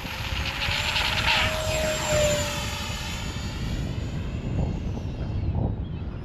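Electric RC model jet's motor whining at full power on takeoff, the whine dropping in pitch and fading as the plane flies away. Gusty wind rumbles on the microphone throughout.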